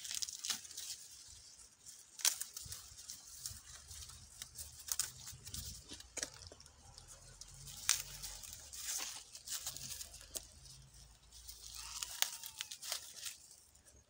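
Dry maize husks tearing and crackling as dried cobs are picked and husked by hand, with many sharp snaps throughout.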